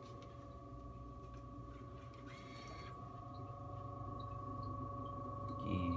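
A steady machine hum with several constant whining tones, slowly getting louder, with a brief rustle about two and a half seconds in and a thump near the end.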